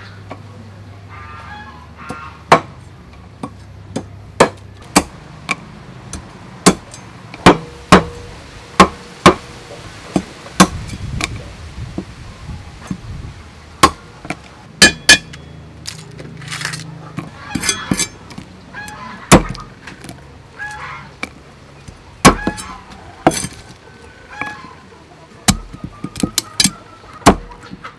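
Cleaver chopping raw blue crabs on a thick wooden chopping block: sharp, irregular chops about once a second, some in quick pairs, cracking through the shells.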